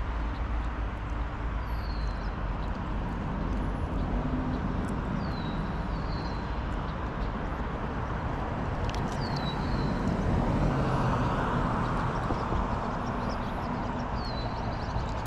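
Steady outdoor background noise with a low rumble, and now and then a short, high, falling bird chirp, about six in all.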